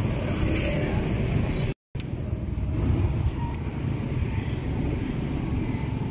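Busy street ambience: a steady low rumble of road traffic, with a few faint clicks. The sound drops out completely for a moment about two seconds in.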